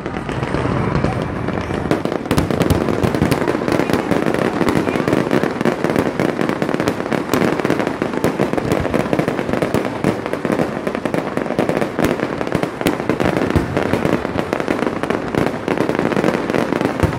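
Fireworks display at its height: a dense, unbroken barrage of shell bursts and crackling, many reports overlapping each second.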